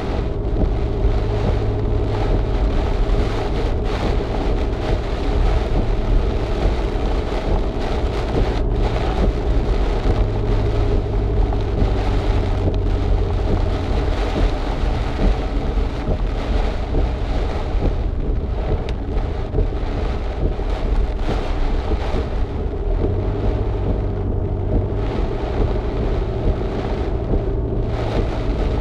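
Vehicle driving through cyclone wind and heavy rain, heard from inside the cabin: a steady, loud wash of rain on the body and windscreen over a heavy low rumble of wind buffeting and road noise.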